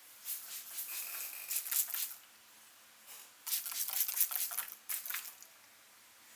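Hands rubbing and scrubbing through hair on the scalp during a head massage, close up: two bouts of crackly rustling, each lasting under two seconds, with a pause between.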